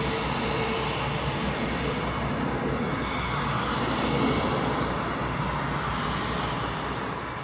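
Airbus A320 airliner's jet engines running at taxi power as it rolls past, a steady jet rumble and hiss that grows a little fainter near the end.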